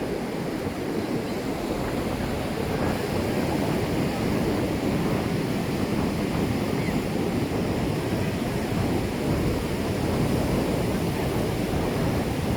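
Ocean surf washing onto a beach, a steady dense rush that swells slightly over the first few seconds, with wind rumbling on the microphone.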